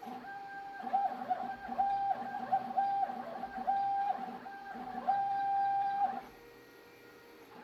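Stepper motors of a CNC writing machine whining at one steady pitch through a string of short moves of varying length, stopping and starting about eight times, then going quiet about six seconds in.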